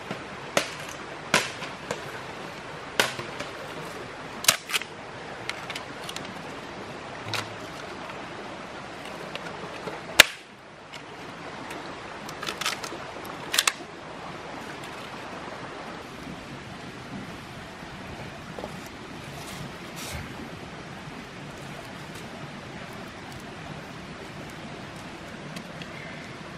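Irregular sharp knocks and clicks over a steady background hiss. They come every second or so through the first half, with the loudest single knock about ten seconds in, then only a couple more.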